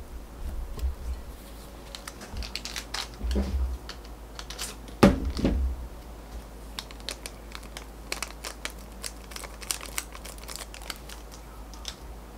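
Plastic stick packets of instant coffee crinkling and being torn open, a run of short crackles, with one loud knock about five seconds in.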